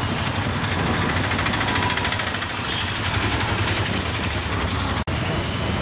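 A steady engine idling amid outdoor street noise, with a brief cut in the sound about five seconds in.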